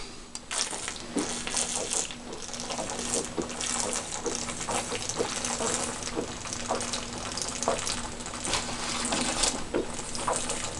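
Beer gurgling and gushing out of an upturned 40-ounce glass bottle into a drinker's mouth: a straw in the bottle neck lets air in, so the bottle empties fast in a continuous shotgun chug.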